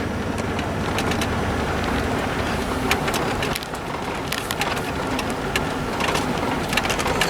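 Vehicle rolling slowly on a dirt road, its tyres crunching gravel with scattered small clicks. A low engine hum fades out about two seconds in.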